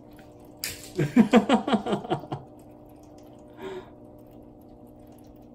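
Cats' paws scrambling and thudding on a wooden floor as they dash after a toy: one sharp scuff, then a quick run of footfalls lasting about a second and a half, and one softer scuff a little later.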